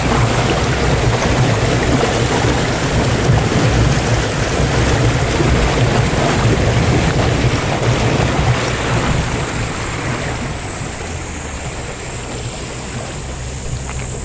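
Muddy runoff water rushing and churning through a narrow concrete channel, a loud steady rush of water that eases a little near the end.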